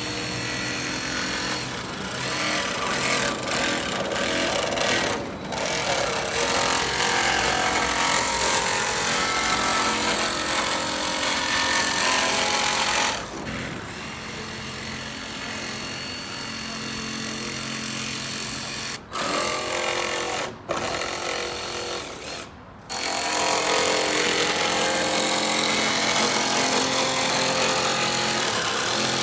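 Power tool running in long runs, a rattling, steady mechanical noise that stops and restarts several times in the middle.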